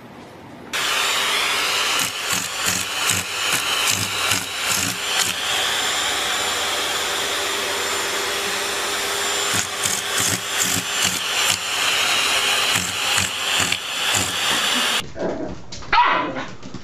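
A dog barking in quick runs, about three barks a second, over a loud steady motor noise. Near the end it cuts to a quieter scene with a short rising dog whine.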